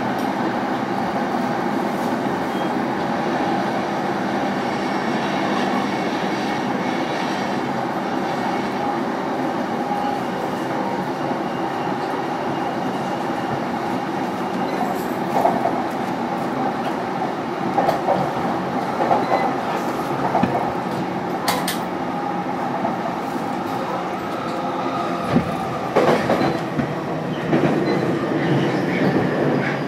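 Interior running noise of an E233-1000 series electric train, heard inside motor car MoHa E233-1226: a steady hum from the traction motors and inverter over the rolling of wheels on rail. In the second half, clicks and knocks over rail joints.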